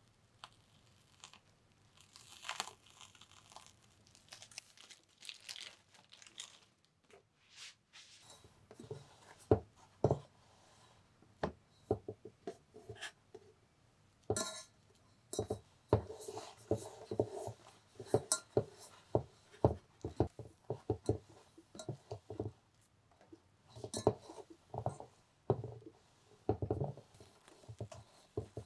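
Metal spatula spreading whipped cream over a cake: soft wet scrapes and smears with irregular light clicks and taps. It is sparse at first and becomes more frequent from about nine seconds in.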